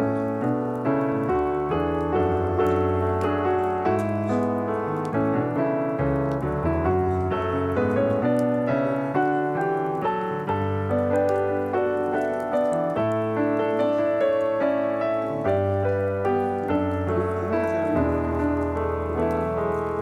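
Background piano music: a flowing melody of single notes over held bass notes.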